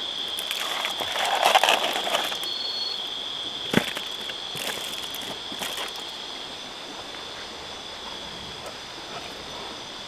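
Insects keeping up a steady high-pitched drone. Over it comes a brief noisy rustle in the first couple of seconds and a single sharp knock about four seconds in.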